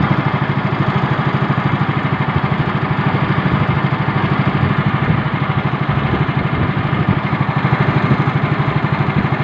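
Small engine running at a steady speed with a quick, even pulse, with no revving or change in pitch.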